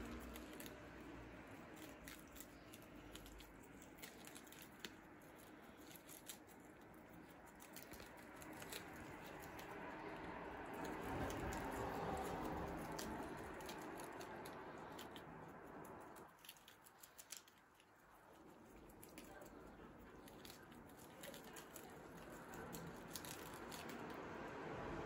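Several guinea pigs munching lettuce leaves: a faint, quick run of small crisp bites and tearing with leaf rustling, dropping off for a couple of seconds a little past the middle.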